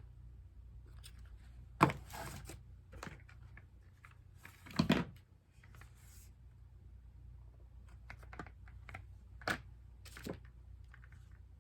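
Small objects handled and set down on a hard surface: scattered sharp clicks and knocks, the loudest about two seconds and five seconds in, with brief rustles between them.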